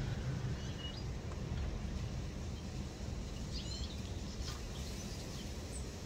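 Outdoor garden background: a few short, faint, high bird chirps over a steady low rumble.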